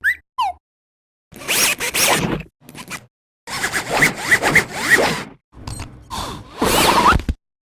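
A string of cartoon sound effects: scratchy, zipper-like rushes of noise in four bursts with short gaps, dotted with quick high squeaks and a few sliding pitch glides.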